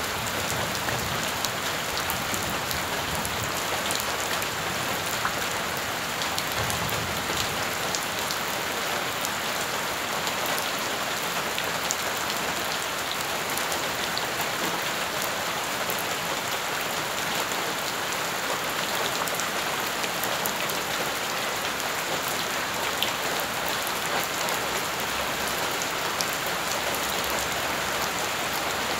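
Steady rain falling on puddled, gravelly ground: a constant hiss dotted with many small drop splashes and taps.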